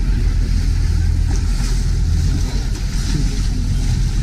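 Motorboat engine running at low speed: a steady low rumble as the boat comes up the narrow canal.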